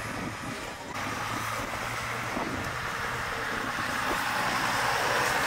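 Diesel engine of a green John Deere tractor running steadily as it drives past.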